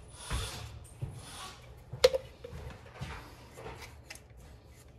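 Leak-detector solution being dabbed and brushed onto the brass fittings of a gas connector: soft rubbing and squishing, with one sharp tap about two seconds in.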